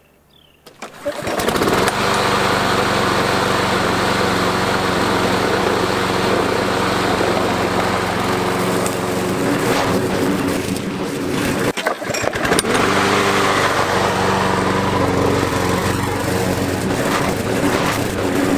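Gas walk-behind lawn mower engine comes up about a second in, then runs steadily while cutting grass, with a brief dip near the middle. The blade vibration from its bent shaft has been cured.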